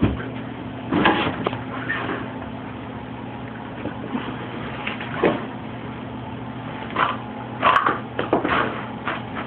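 A steady low hum with scattered bumps and rustles from the handheld camera being moved.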